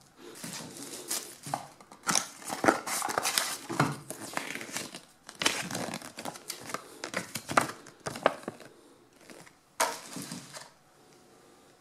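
Crinkling and rustling of packaging being handled: the LED strip's clear plastic bag and a folded paper manual, in irregular bursts that stop about a second before the end.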